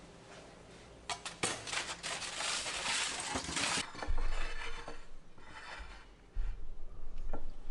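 Kitchenware being handled: a few clicks, then a scraping stretch about one to four seconds in, as a metal spatula works against a foil-lined baking sheet and a ceramic platter is moved on a stone countertop, followed by a few dull knocks.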